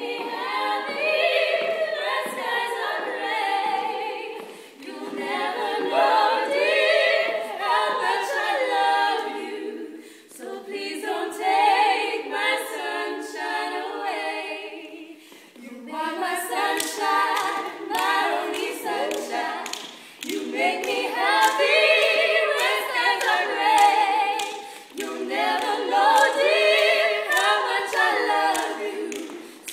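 Female vocal trio singing a cappella in 1940s-style close harmony, barbershop fashion, in phrases with brief breaks every few seconds.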